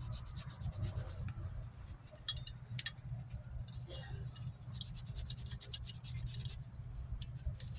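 A rag wiping down a metal drum-brake part, with scattered small scratches and light metallic clicks as the part is handled, over a steady low hum.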